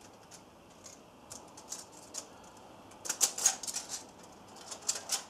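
Head gasket clicking and tapping against the ARP head studs as it is fitted down over them onto the engine block: scattered light clicks, with a quick flurry about three seconds in and a few more near the end.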